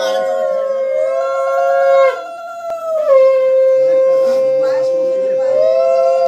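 Conch shell (shankha) blown in long, steady blasts. One blast breaks off about two seconds in, and after a short pause a second, longer one begins; at times a higher note sounds over the low one.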